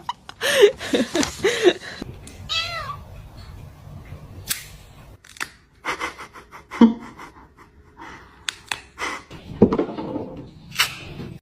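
A cat meowing in several short calls that arc up and down in pitch, among scattered sharp clicks and knocks.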